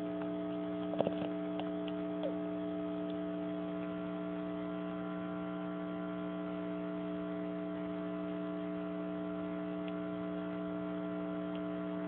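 Steady electrical mains hum made of several fixed tones, unchanging throughout, with a short faint sound about a second in.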